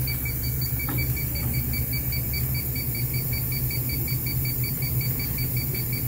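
Inficon D-Tek Stratus infrared refrigerant leak detector beeping rapidly and evenly as its wand picks up leaking refrigerant at a fitting, the reading above 100 ppm. Under it is the steady hum of the unit's evaporator fan.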